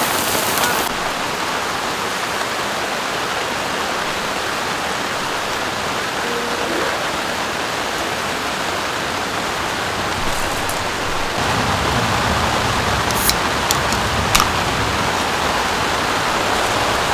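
Steady rain falling, an even hiss throughout. A few light clinks of metal dishes come around the middle of the second half.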